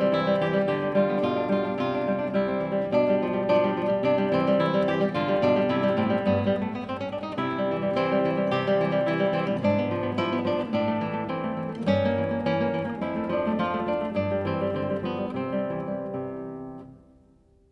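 Background music: acoustic guitar playing plucked and strummed notes, fading out near the end.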